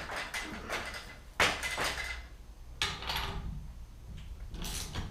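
Metal tools and engine parts clanking and clattering during engine dismantling, with a sharp metallic clang about a second and a half in and another just before three seconds.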